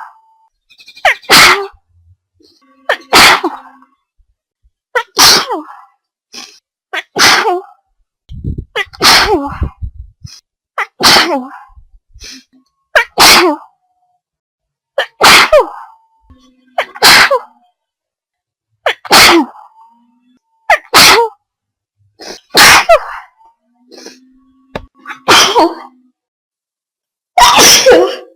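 A rapid series of loud human sneezes, about fourteen of them, roughly one every two seconds.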